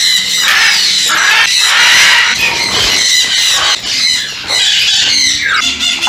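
A flock of parrots, mostly sun conures, screeching loudly, many shrill calls overlapping without a break.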